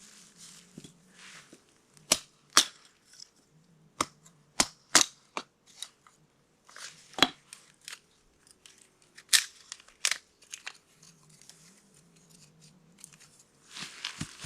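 Irregular sharp cracks and knocks from firewood and a small tent wood stove being lit, with faint rustling between them.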